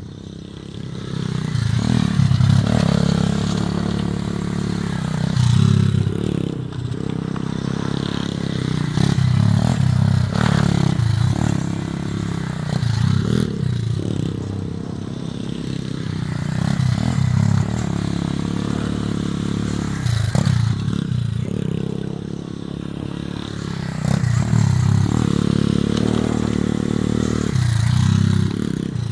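A pit bike's small single-cylinder engine revving up and dropping back every couple of seconds as the bike is ridden hard round tight turns.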